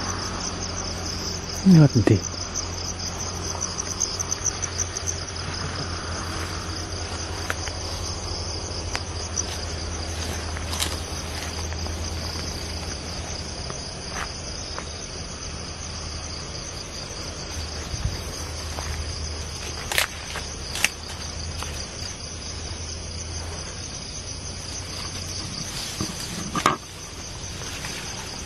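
Night-time insect chorus, a steady high-pitched trilling, with a few scattered clicks and rustles from people walking through the vegetation.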